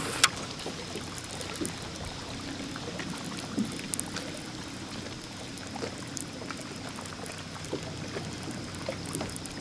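Water lapping and trickling against a kayak hull, with a few light clicks, the sharpest one about a quarter second in.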